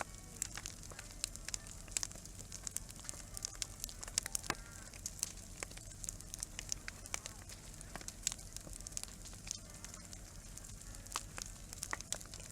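Wood campfire burning and crackling, with frequent irregular sharp pops and snaps.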